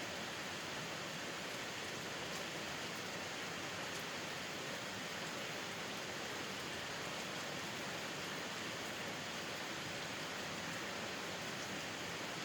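Steady rain falling: an even, constant hiss with occasional faint drop ticks.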